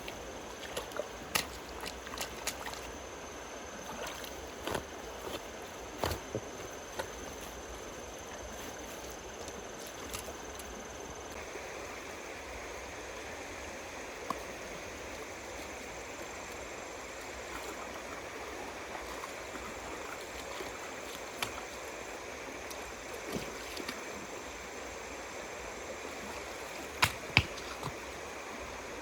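Steady rush of running water, its tone shifting slightly about eleven seconds in, with scattered short knocks and splashes, the loudest a pair near the end.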